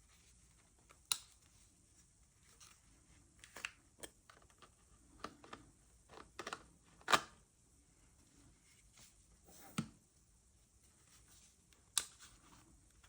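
Close handling of a new Sigma 18-50mm lens and its packaging: faint rustles and light taps, broken by a handful of sharp clicks, the loudest about halfway through.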